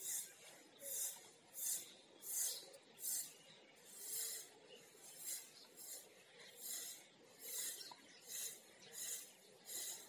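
Faint rasping hiss repeating regularly, about once every three quarters of a second.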